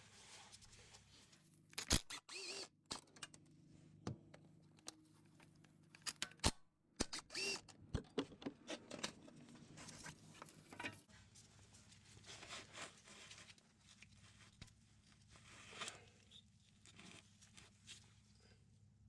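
Irregular clicks, taps and knocks of hand tools and parts being handled during a transmission range sensor replacement, faint overall, with a few sharper clanks about two seconds in and again between six and eight seconds.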